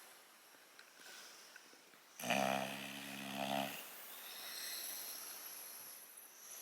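English bulldog snoring while awake and relaxing. One loud snore comes a little over two seconds in and lasts about a second and a half, followed by a softer, breathy out-breath.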